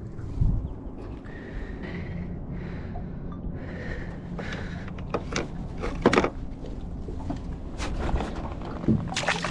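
Scattered knocks and handling clatter in a small aluminium boat, the loudest knock about six seconds in, over a steady low background noise.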